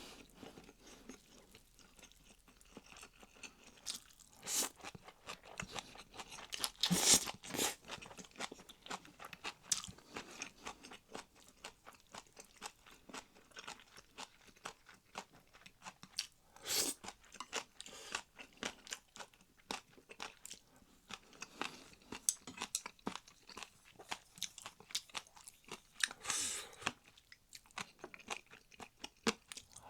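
Close-miked chewing with many small crunches, as in a mukbang eating recording, with a few louder bites spread through.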